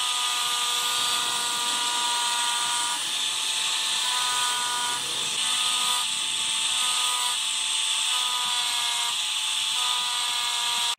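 Electric angle grinder running under load, its abrasive disc grinding along the flat of a steel knife blade: a steady, loud hiss of abrasion over the motor's whine, which shifts in pitch a few times.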